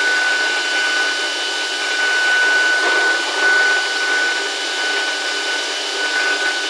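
Woodworking CNC router cutting grooves into a door panel, taking one of several depth passes: a steady rushing cutting noise with a constant high whine.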